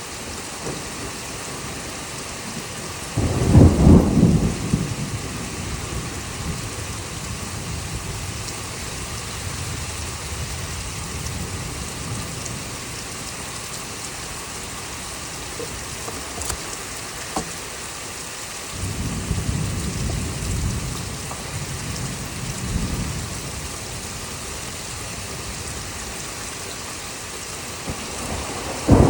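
Thunderstorm with steady rain: a loud thunderclap that rumbles off about three seconds in, a longer rolling rumble about two-thirds of the way through, and another sharp clap at the very end.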